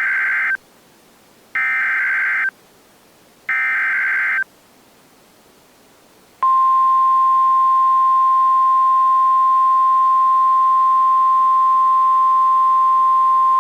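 Emergency Alert System SAME header: three short bursts of warbling digital data tones, about a second each and a second apart. After a short gap, a single long steady attention tone near 1 kHz (the 1050 Hz weather-radio alert tone) begins about six seconds in, signalling an incoming tornado warning.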